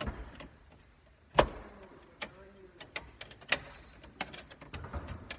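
A plug-in circuit breaker snapping onto the panel's bus bar with one sharp click about a second and a half in, followed by scattered lighter clicks and taps as the breakers and wire are handled.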